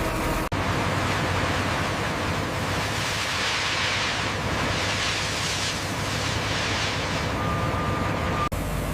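Heavy construction machinery running: a steady low diesel hum under a loud rushing hiss that swells and fades, briefly cut out about half a second in and again near the end.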